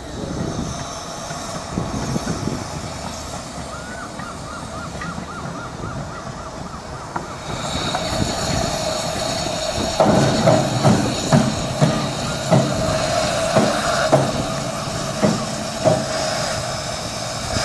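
Miniature 15-inch gauge steam locomotive: it runs slowly in on the rails, then stands hissing steam steadily while a series of sharp metallic clanks sound over the hiss.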